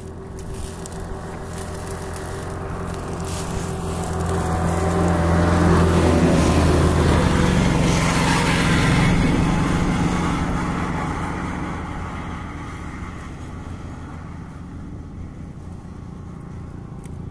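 A motor vehicle passing by: its engine grows louder over several seconds, is loudest about six to nine seconds in, then fades away.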